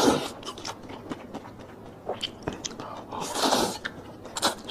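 Close-miked mouth sounds of eating: wet chewing and lip smacks, many short clicks, with a longer noisy rush about three seconds in.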